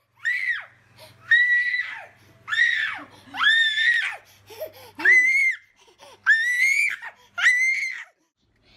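A toddler shrieking in a run of seven high-pitched squeals, roughly one a second, each rising and then falling in pitch.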